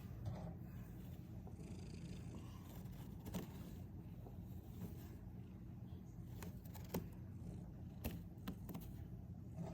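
A sleeping pet snoring, a faint low steady rasp, with a few faint clicks.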